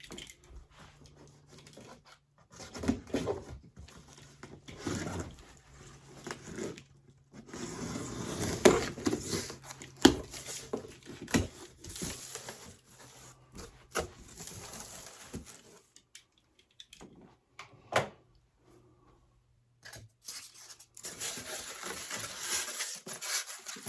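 Welder's shipping box being unpacked by hand: cardboard and styrofoam packing rustling, tearing and scraping in irregular spells, with a few sharp knocks, the loudest about nine, ten and eighteen seconds in.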